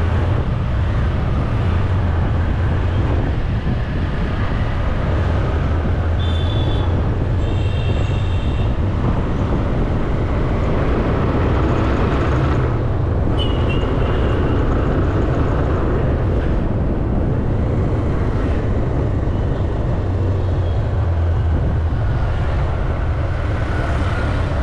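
Riding a motorcycle in street traffic: the bike's engine drones steadily under road and wind noise, and other vehicles' horns beep briefly, twice about a quarter of the way in and once near the middle.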